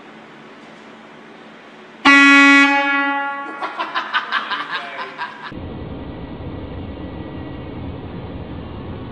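A sudden, very loud air-horn blast about two seconds in, holding one steady tone for over a second, followed by a couple of seconds of rapid loud pulsing that dies away; then a steady rushing noise.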